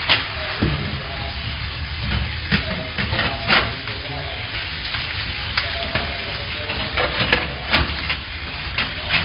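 A metal hook rod and hands clattering and knocking on a steel bar grate over a tank, in short irregular clicks, over a steady hiss and faint voices.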